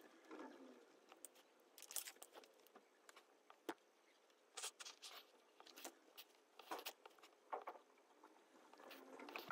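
A woman sniffling quietly while crying: a handful of short, irregular sniffs.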